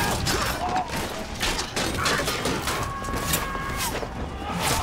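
Film battle sound effects: rapid clashes and impacts of weapons and shields, with a ringing tone held for about a second near the end.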